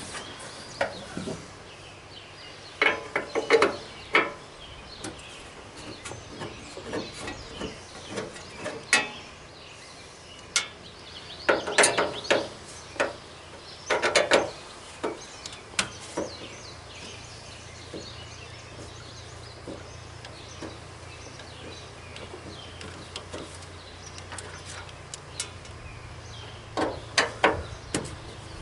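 Scattered clicks, knocks and clatters of a plastic lawn tractor hood and grille being handled and worked apart by hand, coming in a few short clusters.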